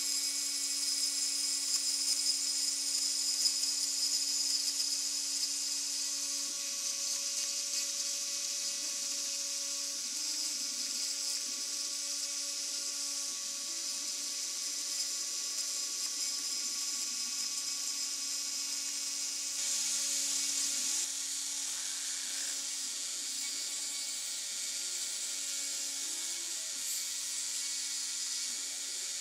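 High-speed rotary tool (Dremel-type) spindle of a homemade scrap-built CNC mill running at a steady high whine while cutting into the workpiece. From about six seconds in, the machine's salvaged photocopier stepper motors join with short, shifting tones as the axes move the bit along its path.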